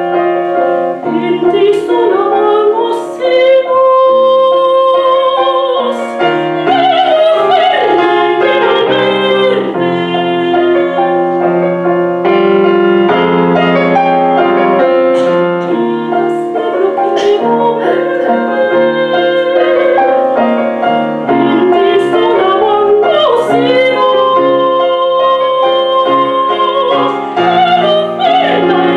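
A classically trained female soprano singing an art song in Galician, in operatic style, with grand piano accompaniment. She holds several long notes with vibrato over steady piano chords.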